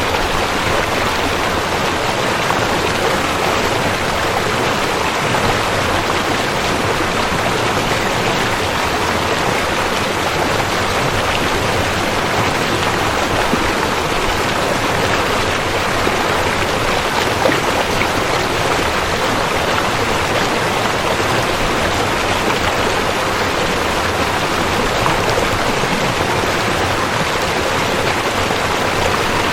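A river flowing, a steady even noise of running water.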